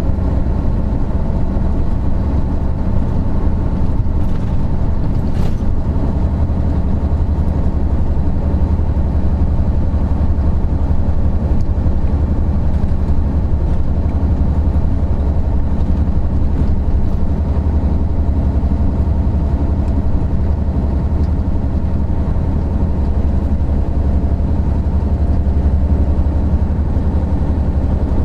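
Isuzu Gala III coach's 12PE1 V12 diesel engine running while the coach is under way: a deep, even drone that holds the same engine speed throughout.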